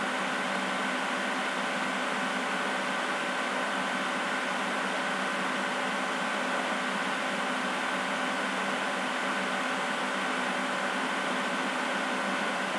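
Steady background hiss with a low hum and a faint high tone, unchanging throughout, with no distinct events.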